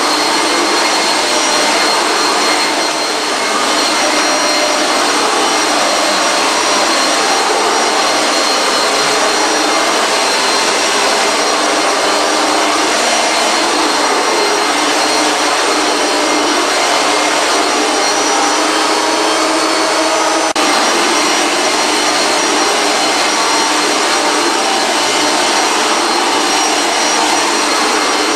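Singer Power Amp 8.5-amp bagged vacuum cleaner running steadily: a rushing airflow with a steady motor whine of several high tones. A brief click about two-thirds of the way through.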